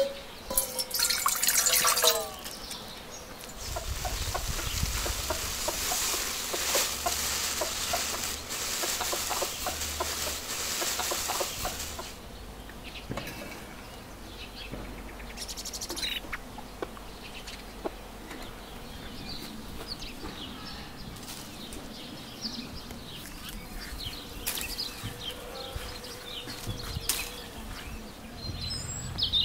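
Water poured into an enamel bowl: a spoon clinks against the bowl at the start, then a steady splashing rush for about eight seconds. After that, chickens and small birds call here and there.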